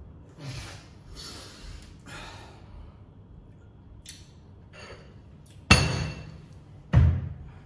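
Two sharp knocks about a second apart near the end, each with a brief ringing tail. Before them come a few soft breathy noises.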